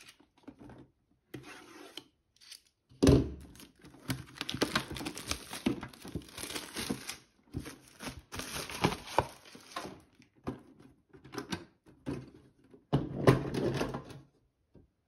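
Plastic shrink-wrap being torn and peeled off a metal lunchbox-style tin, a crinkling run with many small crackles, preceded by a sharp knock about three seconds in. Near the end comes a louder clatter as the tin is handled and its lid opened.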